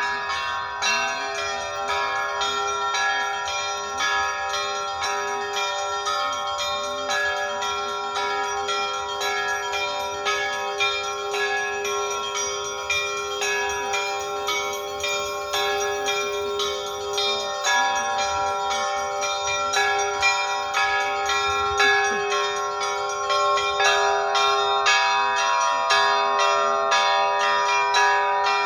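Several bells rung together in a quick, steady rhythm, over the sustained hum of a larger bell.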